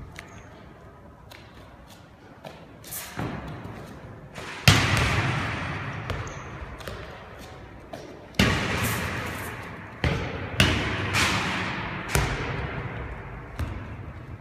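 Handballs thrown hard, landing with sharp smacks that echo for a second or more around a large empty sports hall. There are about half a dozen bangs, the loudest about five seconds in, with a few softer knocks before it.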